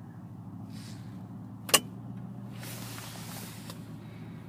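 Subaru Forester idling steadily, heard from inside the cabin, with one sharp click a little under two seconds in, typical of an overhead-console light switch being flicked. A brief rustle follows about a second later.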